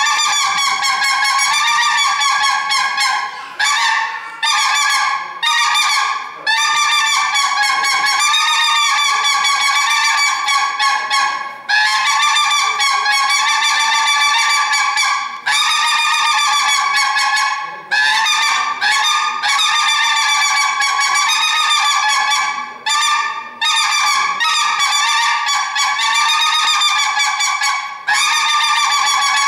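A reedy, honking pitched tone, held in long wavering notes of one to four seconds with short breaks between them.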